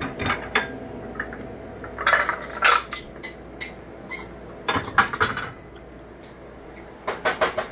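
Ceramic dishes clinking and clattering as a bowl is taken down from a kitchen cupboard shelf stacked with plates and mugs. There are three short bursts of clatter, about two, five and seven seconds in.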